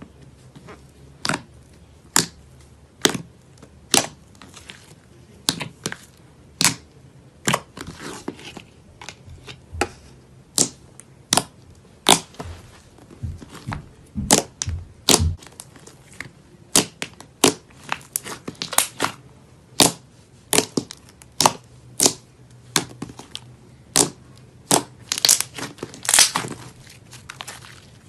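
Hands squeezing and stretching slime, trapped air popping out in sharp clicking pops a little faster than one a second, with a quicker run of crackles near the end.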